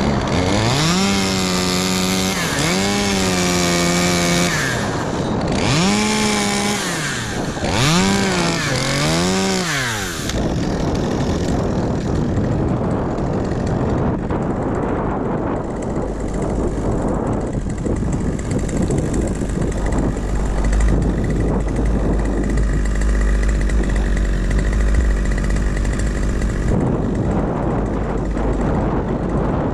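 Two-stroke chainsaw revving up and dropping back four times over the first ten seconds or so. It is followed by a steady rushing noise, with a deep low rumble through much of the second half.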